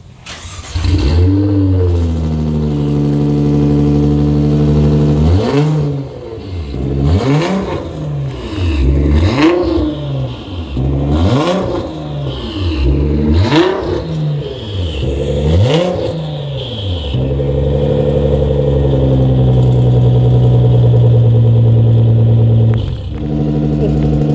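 Nissan GT-R R35's twin-turbo V6 starting through an Armytrix titanium valvetronic exhaust with straight pipes: it fires about a second in and settles into a fast idle. Midway it is blipped hard about eight times in quick succession, each rev rising and falling sharply, then it drops back to a steady idle.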